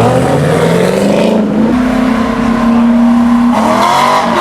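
Car engine revved hard at high rpm. The pitch climbs for over a second, holds steady for nearly two seconds, then climbs again near the end.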